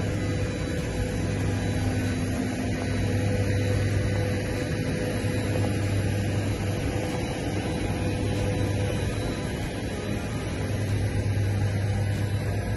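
Steady mechanical hum of airport apron machinery: a low drone with a fainter higher tone over an even rushing noise.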